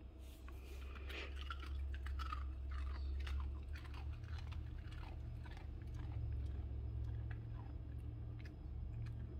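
A small dog crunching and chewing a hand-fed treat: irregular crisp crunches, thickest over the first several seconds and thinning out later, over a steady low hum.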